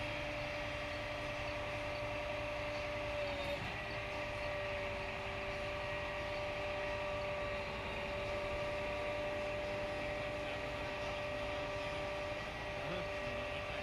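Steady mechanical hum holding several constant pitches over a low rumbling noise.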